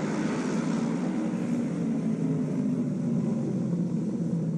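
Several auto-race motorcycles' 600 cc two-cylinder engines running together as a steady mix of engine tones while the pack circulates the track.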